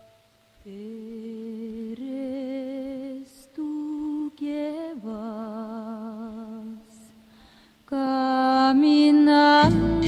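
Orchestral introduction to an Argentine song: a slow solo melody in long notes with vibrato, broken by short pauses, over quiet accompaniment. It swells about two seconds from the end, and the full orchestra comes in loudly just before the end.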